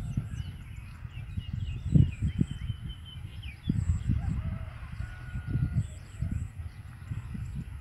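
Small birds chirping and calling in short notes over an uneven low rumble that swells and fades, like wind buffeting the microphone.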